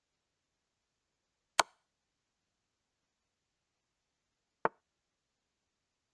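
Two short clicks of a chess board app's move sound effect, about three seconds apart: a rook move giving check about a second and a half in, then a king move near the end. The check click is brighter than the plain move click.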